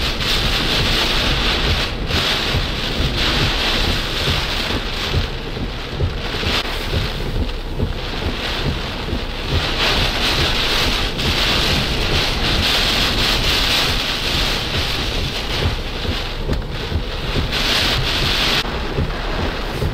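Hurricane wind with driving rain, gusts buffeting the microphone; the hiss swells and eases every few seconds and dies back a little near the end.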